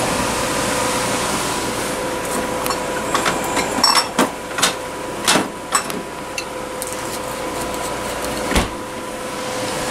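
Bottles in a refrigerator's door shelves clink and knock as they are rummaged through, a run of sharp clicks from about two and a half to six seconds in. A steady hiss runs underneath, and one low thump comes near the end.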